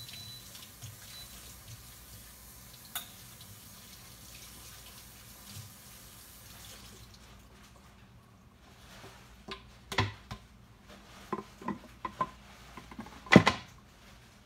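A steady hiss of running water for about the first half, with a single click about three seconds in. Then comes a run of knocks and clinks of dishes and utensils, the loudest near the end.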